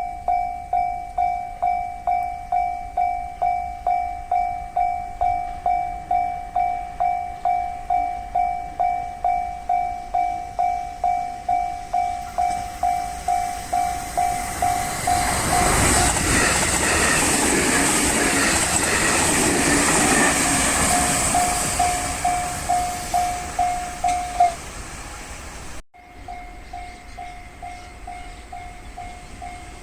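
Japanese level-crossing electronic warning bell ringing steadily about twice a second. From about halfway through, a passing train's running noise builds, peaks and fades under it. The bell stops a few seconds from the end, then after a brief cut it is ringing again.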